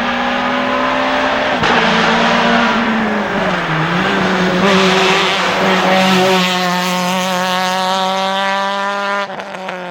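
Renault Mégane Maxi rally car's four-cylinder engine running hard at high revs, the pitch dipping briefly a few seconds in as it shifts, then held steady, with a short lift in level near the end.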